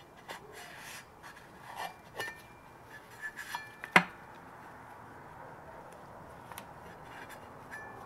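Light, scattered metallic clicks and clinks as a thin gauge card is worked between the stainless steel impeller blades and the wear liner of a jet pump to check the clearance. A few contacts ring briefly, and one sharper click comes about four seconds in.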